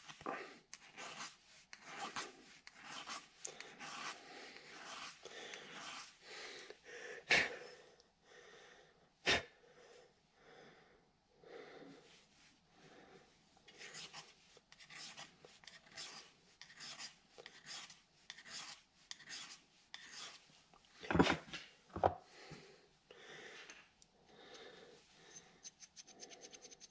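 Hand file working a small metal key, short scraping strokes one after another, broken by a few sharper taps. The key is being filed down to fit a lathe change gear's keyway snugly, since it was too tight.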